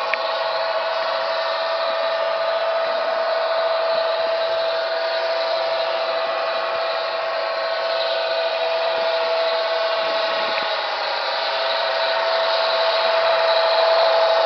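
Märklin LINT 27 model diesel railcar running on C track under digital control, its sound module and drive giving a steady whine over a rushing noise. It gets a little louder near the end as the railcar comes close.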